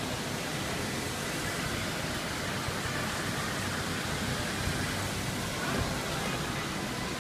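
Steady, even roar of airport curbside ambience, with vehicle traffic below blending into one continuous noise and no distinct events.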